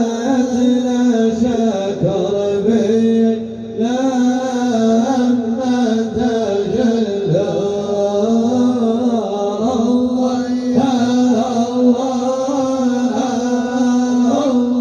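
Arabic devotional praise song (madih nabawi) sung in a chant-like style, the voice holding long notes with wavering melismatic ornaments and only brief breaks between phrases.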